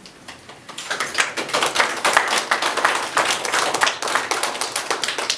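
A group of people clapping, starting about a second in and keeping up a dense patter of claps.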